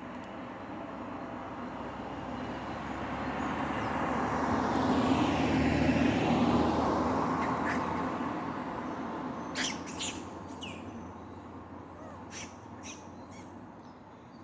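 A vehicle passes by on the road, its engine and tyre noise growing to a peak about halfway through and then fading away. Several short, high chirping calls follow near the end.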